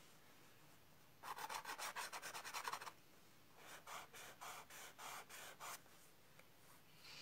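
Colored pencil shading on toned paper: quick back-and-forth strokes scratching across the paper for about two seconds starting a second in, then after a short pause a run of slower strokes, about five a second.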